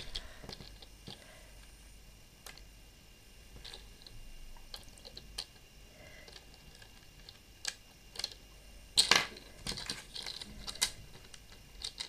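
Small plastic toy parts clicking and tapping on a tabletop as they are handled and fitted together, with a quick run of louder clicks about nine seconds in.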